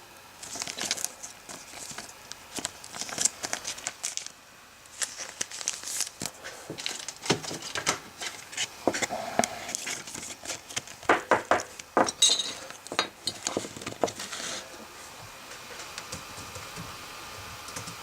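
Crinkling and clicking of plastic and trading cards being handled, in irregular bursts that stop about fourteen seconds in, leaving a faint steady hiss.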